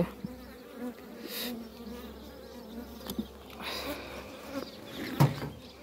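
Honeybees buzzing over an open hive as a steady low hum, with louder swells as bees fly close. There is a sharp knock about five seconds in.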